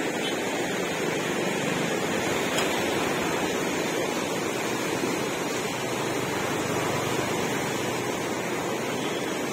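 Godavari river in full flood, muddy water rushing and churning past in a steady, unbroken rush.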